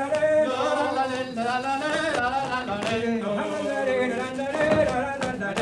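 A voice singing, holding notes and sliding from one pitch to the next.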